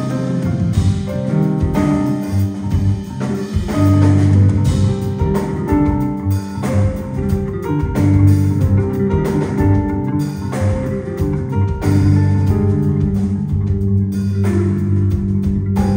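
Live band playing a math-rock song: a busy, prominent bass line with plucked electric guitar and drum kit, loud and continuous.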